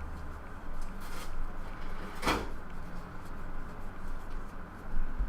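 Trading cards and pack wrappers being handled: a faint rustle about a second in and a louder brief rasp a little past two seconds in.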